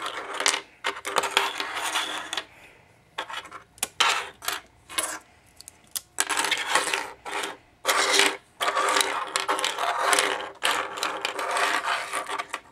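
Loose plastic pieces of a YJ Axis Cube clattering and clicking against one another and the desk as they are picked up, sorted and set down, in bursts with short quieter gaps.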